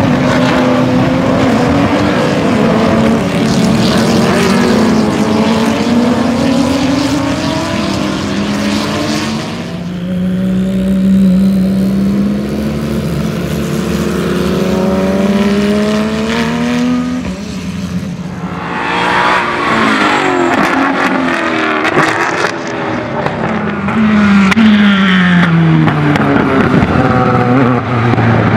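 Race car engines passing one after another at speed, each engine note rising as the car approaches and dropping as it goes by, several cars overlapping, with a brief lull about ten seconds in.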